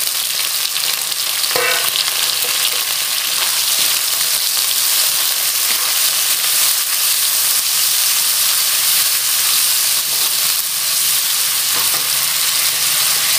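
Squid, prawns, shallots and garlic sizzling steadily in hot oil in a wok, stirred and turned with a wooden spatula.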